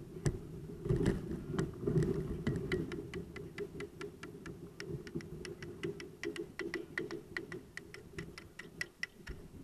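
Kayak hull pushing through thin sheet ice: a low grinding rumble under a rapid run of sharp cracks and clicks, about four or five a second, loudest in the first couple of seconds.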